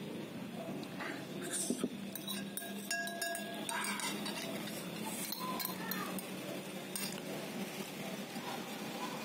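Metal spoon and fork clinking and scraping against a ceramic bowl, in scattered strokes that are densest in the first half, with a short ring from the bowl now and then.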